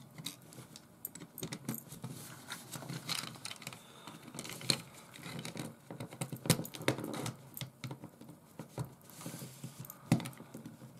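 Light plastic clicks and scraping of the LCD screen's plastic tray inside a Fluke 12 multimeter being worked free of its edge clips, with a few sharper snaps as clips let go, the clearest about four and a half, six and a half and ten seconds in.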